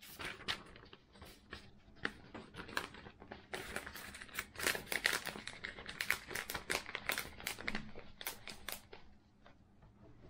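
Glossy printed paper sheets being handled, folded and crumpled by hand: a dense run of crinkles and crackles, loudest in the middle, dying away about nine seconds in.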